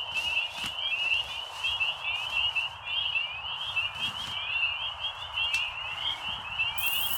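A chorus of frogs calling continuously, many quick overlapping notes, over the steady hiss of a small battery pressure washer spraying.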